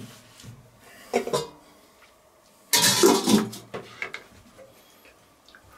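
Stainless-steel lid set onto a steel goulash kettle, clattering on the rim for under a second about three seconds in, after a lighter knock about a second in.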